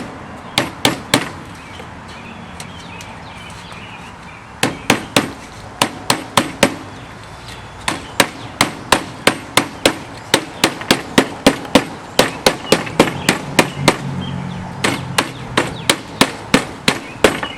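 Repeated sharp taps of a tool pressing the metal spline of an Andersen window screen into its frame channel to hold new metal screening. The taps come in a short group, then a pause, then a steady run of about two or three a second from about eight seconds in.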